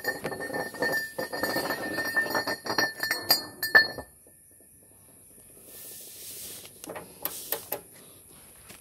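Ratcheting combination wrench clicking rapidly as it turns a bolt on an aftermarket rear lower arm bar, with a ringing metallic clink. The clicking stops abruptly about four seconds in, and a few light metal clinks follow near the end.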